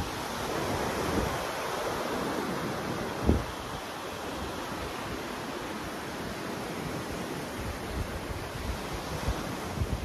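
Surf washing onto a sandy beach, a steady sound of breaking waves, with wind buffeting the microphone. A brief low thump about three seconds in.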